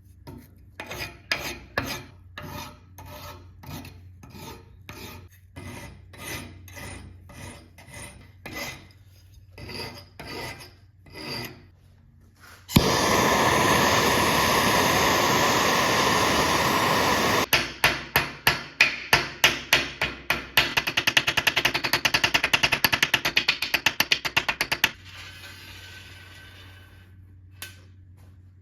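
A metal file rasping in steady strokes, about two a second. Just under halfway through a loud, steady rushing noise takes over for about five seconds, then gives way to rapid strokes that quicken and stop shortly before the end.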